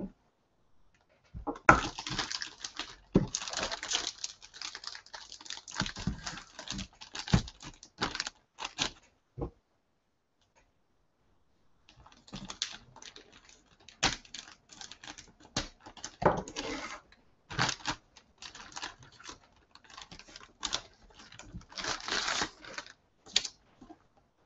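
A thin plastic bag around a laptop crinkling and rustling as it is handled and cut open, in two spells of irregular crackling with a pause of about two seconds in the middle.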